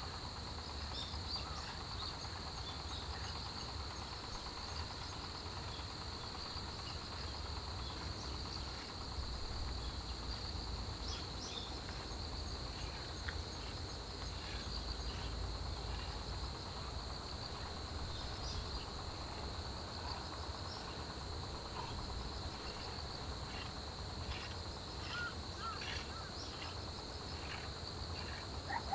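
Chorus of autumn crickets and other field insects: a steady high trill with a second, higher pulsing chirp over it, plus scattered faint chirps, over a low steady rumble.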